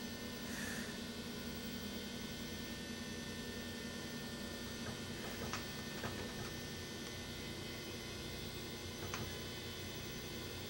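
Steady electrical mains hum made of several fixed tones, with a few faint clicks in the second half.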